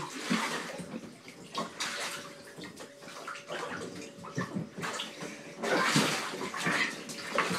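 Bath water sloshing and splashing irregularly while a cat is being washed in it.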